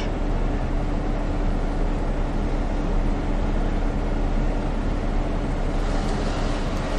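Car engine running with a steady hum, heard from inside the car's cabin.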